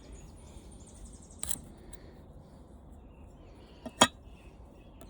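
Floor-fan motor parts being handled during disassembly: a faint click about a second and a half in and one sharp click about four seconds in, over quiet background.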